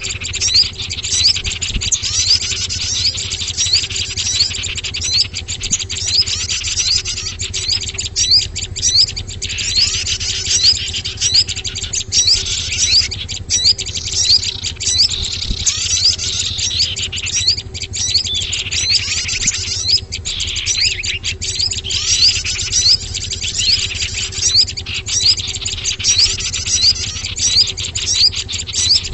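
Bird-lure (pikat) recording for small songbirds: a dense chorus of rapid, high chirps and twittering sweeps overlapping without pause, over a steady low hum.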